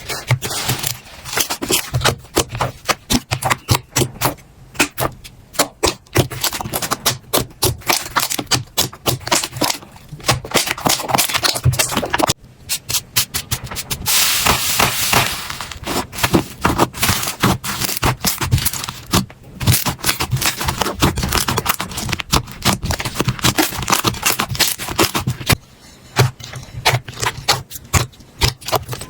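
Slime being squeezed, poked and stretched by hand, giving a dense run of wet crackling, popping and clicking sounds, with a stretch of steadier crackle about halfway through.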